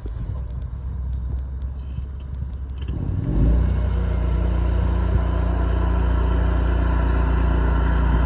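Hydro jetter's engine and pump running, revving up about three seconds in to a louder, steady drone.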